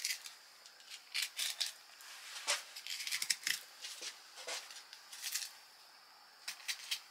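Dexter fillet knife cutting along the back of a kingfish: a series of short, scratchy strokes through skin and flesh at uneven intervals, with quiet gaps between them.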